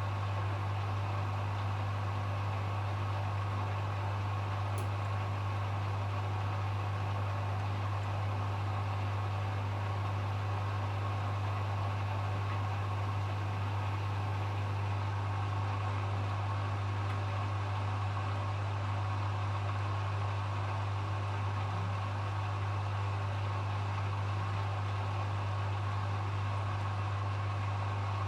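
Hoover HW411AMC washing machine in its final spin, the drum and motor running at a steady speed with a constant low hum and a higher whine above it.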